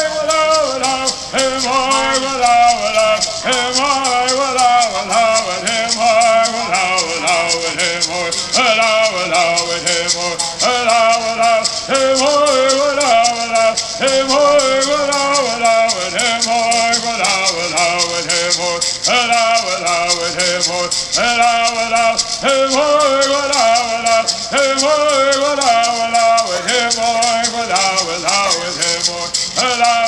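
A Kumeyaay bird song: voices singing a repeating melody over the steady, fast shaking of gourd rattles.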